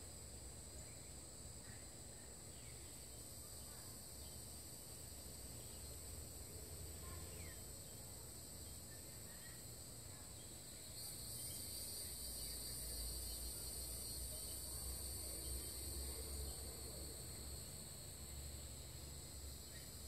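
Steady high-pitched insect chorus in the background, with a low rumble underneath; both grow louder about halfway through.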